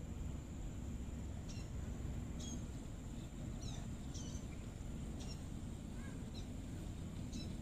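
Sparrows chirping in the bushes: about eight short, scattered high chirps over a steady low background rumble.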